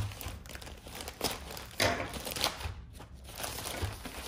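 Gift wrapping crinkling in a few irregular rustles as a small package is unwrapped by hand.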